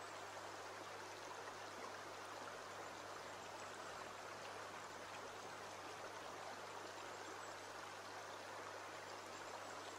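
Shallow creek water running over stones: a steady, even rush.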